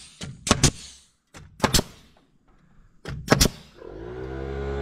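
Pneumatic framing nailer firing nails into lumber: several sharp shots, some in quick pairs, in the first two seconds and again about three seconds in. Near the end a motor starts up, its hum rising in pitch and then holding steady, typical of the air compressor kicking on to refill after the nailing.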